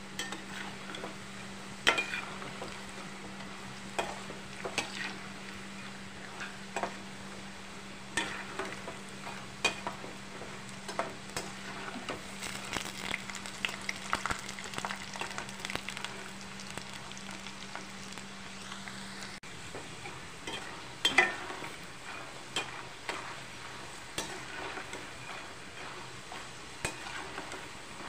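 Peanut pakodas deep-frying in hot oil in a steel kadai, sizzling steadily, with a metal spoon scraping and clinking against the pan now and then as they are stirred, loudest about two seconds in and again about twenty-one seconds in. A low steady hum stops about two-thirds of the way through.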